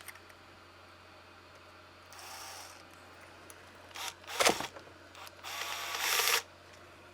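Small plastic and metal parts clicking and scraping as hinge pin blocks and their screws are fitted by hand on an RC truck's front end: a short rasp, a cluster of sharp clicks, then a longer, louder rasp near the end.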